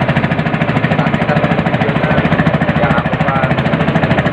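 A small engine running steadily with a rapid, even chugging pulse, with voices faint underneath.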